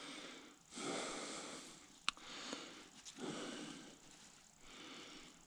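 A person breathing close to the microphone, slow breaths coming about every two and a half seconds, with a single sharp click about two seconds in.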